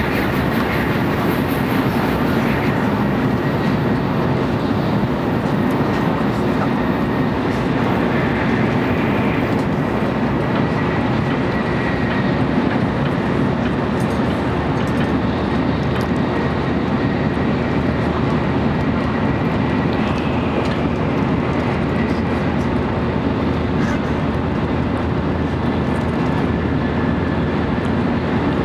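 Steady running noise inside an N700 series Shinkansen car at speed, with a faint high whine. In the first second or so an oncoming Shinkansen passes close by the window in a brief rush.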